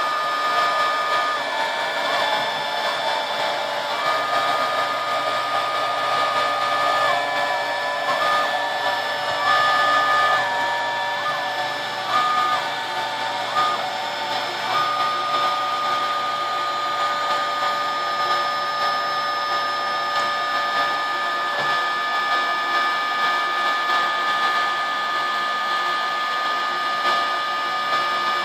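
Homebuilt CNC router raster-cutting a wooden sign with a V bit: the router motor runs steadily, and a whining tone steps down and back up several times as the machine works.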